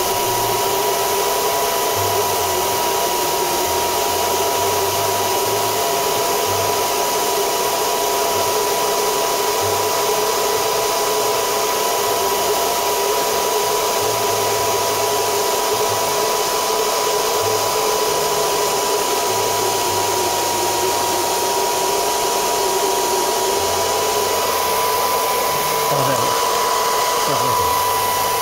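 Small handheld hair dryer running steadily, its fan noise carrying a constant high hum, blowing warm air onto a phone's back cover to soften the adhesive.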